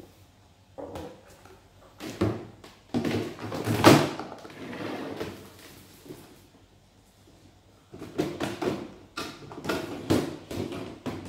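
Plastic drawers of an Avalon drawer unit sliding in and out, with scraping and hollow plastic knocks in two bouts, the loudest about four seconds in.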